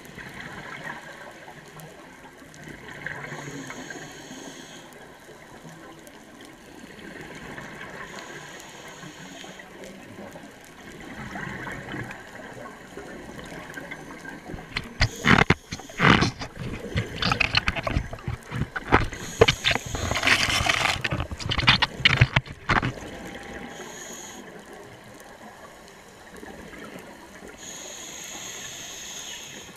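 Scuba diver breathing through a regulator underwater: soft hissing inhalations every few seconds, and from about halfway through a long stretch of loud bubbling and crackling as exhaled bubbles stream away.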